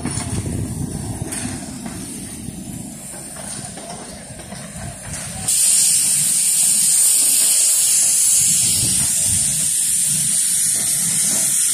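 Steam locomotive letting off steam: a loud, steady hiss that starts suddenly about halfway through, over a low rumble in the first half.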